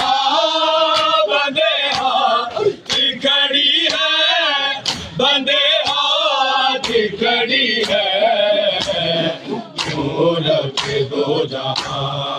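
A group of men chanting a noha, a Shia mourning lament, in unison, with sharp slaps of chest-beating (matam) keeping a steady beat about every two-thirds of a second.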